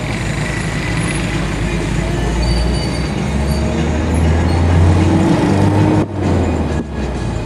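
Traffic and road noise heard from inside a moving car, with a low engine drone that swells from about three seconds in. The sound drops out briefly twice near the end.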